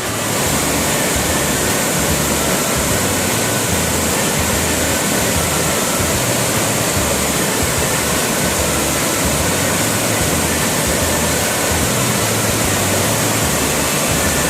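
Siritharn Waterfall, about 40 m high and carrying a great deal of water, pouring in a loud, steady rush.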